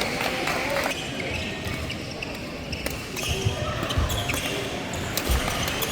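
A ball bouncing on a hard court floor during play: several dull thumps, mostly in the second half.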